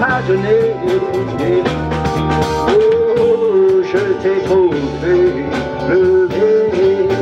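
Live band playing amplified music: electric guitar, bass guitar, drum kit and keyboard, with a steady beat and a wavering lead melody.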